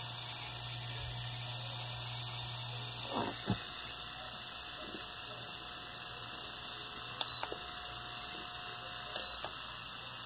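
Mallory electric fan motor, freshly re-bushed, running with only a steady low hum, its normal running sound and no bearing noise. A couple of faint knocks come about three seconds in, and two short electronic beeps come near the end.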